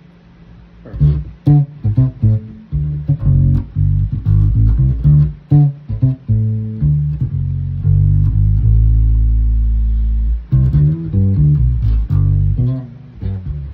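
Four-string bass with a Squier Stratocaster body, a Jazz Bass neck and D'Addario Chromes flatwound strings, played fingerstyle on a middle setting of its five-way pickup switch. It plays a bass line of quick plucked notes, with a few longer held notes in the middle.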